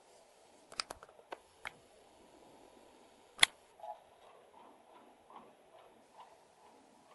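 Scattered sharp clicks and taps, a quick cluster in the first two seconds and one much louder click about three and a half seconds in, then softer ticks: ocellated lizards snapping at mealworms in a terracotta dish.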